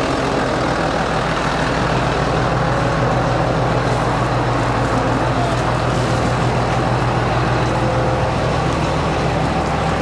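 Tractor's diesel engine running steadily close by, a deep even hum with no change in speed.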